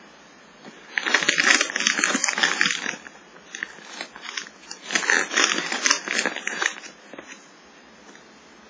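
Crinkly plastic rice-cracker bag being handled and turned over, crackling loudly in two spells of about two seconds each, quieter between them and dying away near the end.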